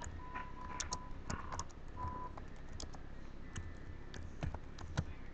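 Computer keyboard keys clicking irregularly as text is typed. A steady tone sounds on and off through the first two seconds, over a low hum.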